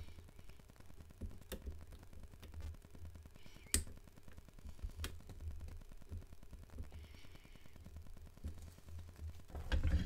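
Faint small clicks and taps of a lock pick working the levers inside a Fichet eight-lever safe lock, over a low handling rumble. The sharpest click comes a little under four seconds in, and there is a louder knock of handling near the end.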